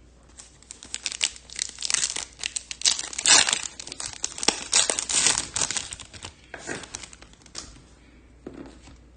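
Foil trading-card pack wrapper crinkling and tearing as it is opened by hand, a run of dense crackles that is loudest in the middle and dies away near the end.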